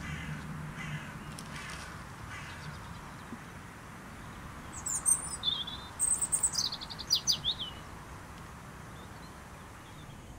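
A bird calling in a run of quick, high chirps, each falling in pitch, about halfway through.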